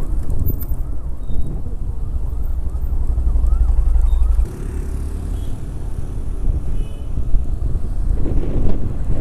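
Wind buffeting the microphone on a moving Ola electric scooter, with road noise; the rumble drops suddenly about halfway through.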